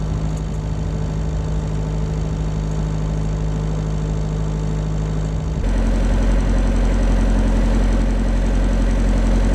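Motor cruiser's engine running steadily with an even, unchanging hum. About five and a half seconds in the tone changes abruptly to a slightly different pitch and gets a little louder.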